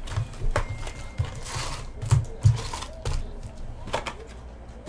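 Hands opening a cardboard hockey card hobby box and pulling out its foil packs onto the table: scattered clicks and light knocks, a rustling slide about a second and a half in, and two low thumps just after two seconds.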